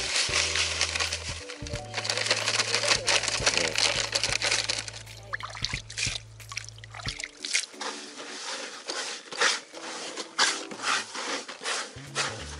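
Bread-crumb groundbait poured into a plastic bait bucket with water, hissing at first, then squishing in many short strokes from about halfway as it is kneaded by hand. Background music with a bass line runs under it and drops out about halfway.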